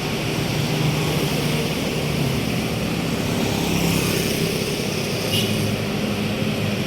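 Steady engine and road noise of a large diesel bus running past, with no horn sounding. A short high hiss comes about five seconds in.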